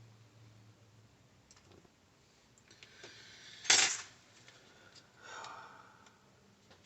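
Small clicks and taps of phone-repair tools and parts being handled, with one sharp, loud click about four seconds in and a brief soft rush of noise a second and a half later.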